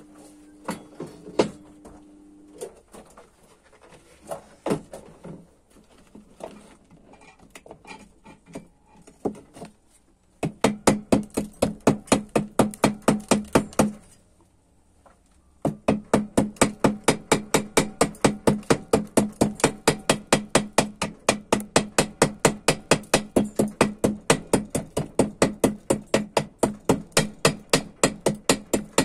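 Chipping hammer striking slag off a fresh stick weld on steel plate. Scattered knocks and taps at first, then a fast, even run of ringing metallic strikes, about four or five a second, with a short pause near the middle.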